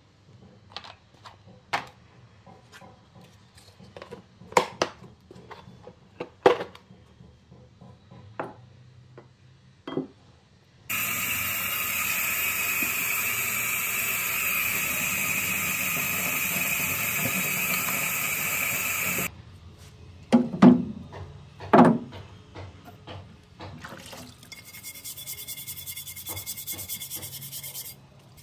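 Metal parts of a dismantled hand plane set down on a wooden workbench with scattered knocks and clinks. Then a faucet runs water into a utility sink for about eight seconds and stops abruptly. After a couple more knocks, a brush scrubs the plane body in soapy water.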